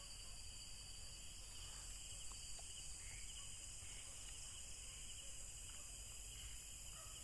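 Steady chorus of crickets and other night insects: a continuous high trilling that does not let up.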